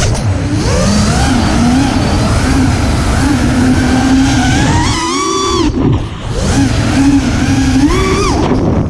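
FPV racing quadcopter's electric motors and propellers whining, the pitch rising and falling with the throttle. The pitch sags and the sound drops off briefly about six seconds in as the throttle is cut, then climbs again.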